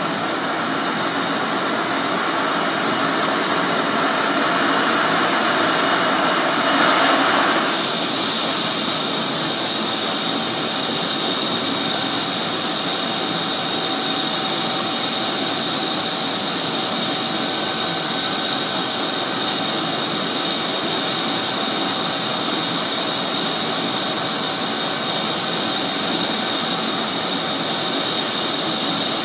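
Medical helicopter's turbine engines running with the main rotor turning on the helipad before liftoff: a steady turbine whine over rushing rotor noise. About seven seconds in, part of the noise drops away and a new steady tone joins the whine.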